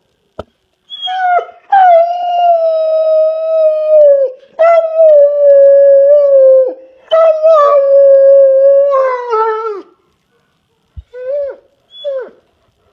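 A dog howling: three long howls of two to three seconds each, sliding slightly down in pitch as they end, followed by two short yelps near the end.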